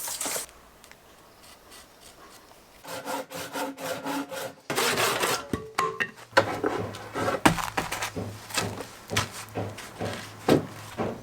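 Wood being sawn by hand: after a quiet start, a run of rasping saw strokes begins about three seconds in and goes on to the end.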